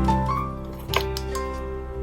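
Instrumental background music with sustained notes, with a few small clicks about a second in.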